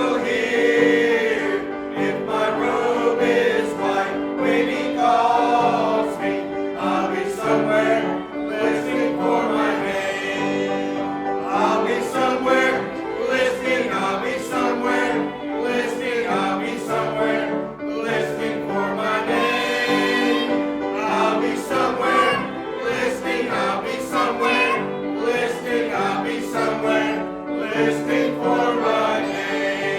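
Church congregation singing a hymn together, a mixed group of untrained voices.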